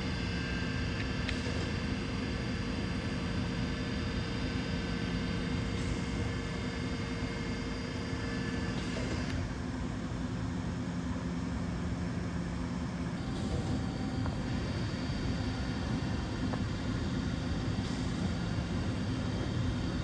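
DVF 5000 five-axis CNC machining centre running a cut: steady machine noise with several held tones from the spindle and cutting. The tones change about 9 seconds in and again about 13 seconds in as the cut changes.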